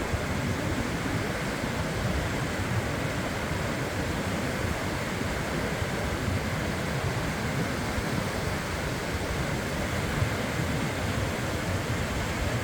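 Sea waves on a beach: a steady, even rush of surf with no single wave break standing out.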